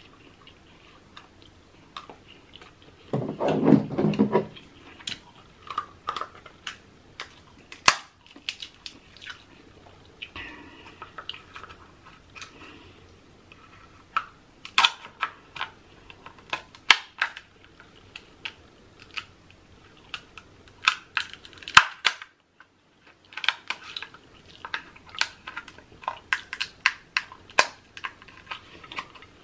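Kitchen shears snipping and cracking through a king crab leg's shell: a run of sharp, crisp clicks and crunches, thickest in the second half. A brief low vocal hum comes about three seconds in.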